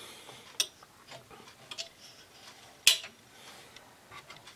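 A few scattered light clicks and knocks of a small screwdriver and other small objects being handled on a workbench, the sharpest about three seconds in.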